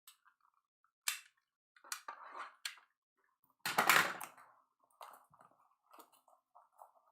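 Packaging being handled and opened on a box of trading cards: scattered short crinkles, clicks and knocks, with the loudest, longer crackle about four seconds in.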